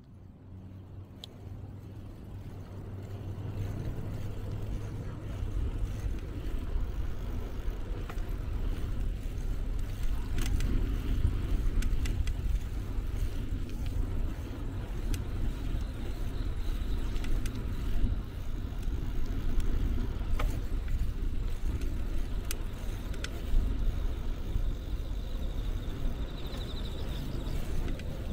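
Steady low rumble of wind and road noise on a DJI Pocket 2's microphone, carried on a moving bicycle beside a road, with a few light clicks. It fades in over the first few seconds.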